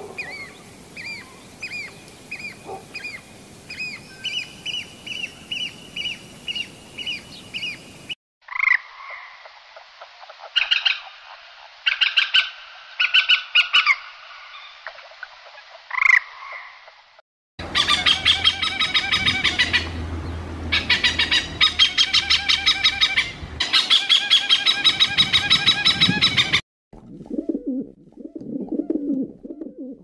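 A sequence of animal calls cut one after another: evenly repeated short high chirps, then scattered squawking calls, then a loud, fast, pulsed rattling chorus. In the last few seconds comes the low cooing of rock pigeons.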